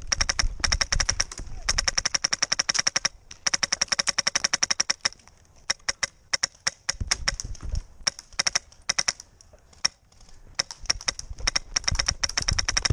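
Airsoft guns firing full-auto: a fast, even clatter of shots in long strings, broken by brief pauses about three seconds in and again near ten seconds.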